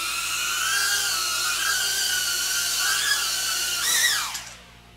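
Tiny whoop quadcopter's motors and ducted propellers whining, pitch wavering as the throttle changes. About four seconds in the whine rises briefly, then winds down and stops: the drone's battery is dead.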